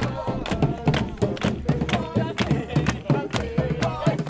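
Background music: a steady drum beat at about four strikes a second, with a sung melody over it.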